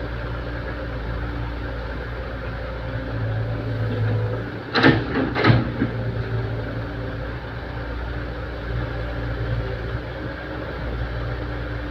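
Excavator's diesel engine running steadily, with two sharp knocks about two-thirds of a second apart near the middle.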